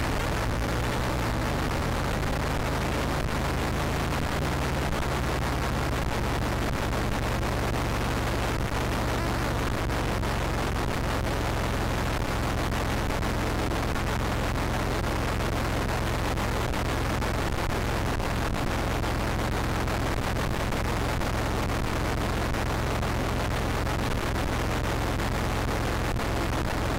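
Steady, dense wall of noise with a low, unchanging hum underneath, played back as the soundtrack of an abstract digital video artwork.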